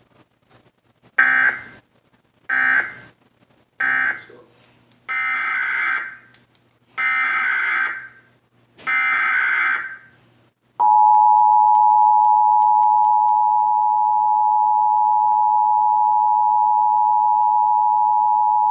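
Emergency Alert System tones. First come three short bursts of warbling SAME digital data, the end-of-message code closing one station's test. Then come three longer bursts, the SAME header opening the next station's test. In the second half the two-tone EAS attention signal (853 and 960 Hz together) sounds loud and steady for about eight seconds.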